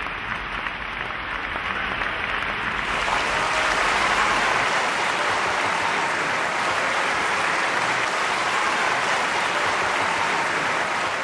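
Large audience applauding steadily, the clapping filling in and growing a little louder about three seconds in.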